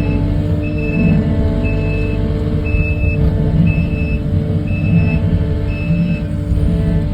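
Kubota skid-steer's diesel engine running steadily while its backup alarm beeps about once a second as it reverses; the beeping stops near the end.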